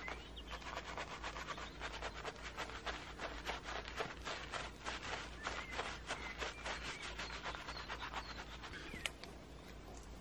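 Brush scrubbing and dabbing bitumen paint into the pits of a wet asphalt driveway: a quick run of scratchy strokes, several a second, that stops about nine seconds in.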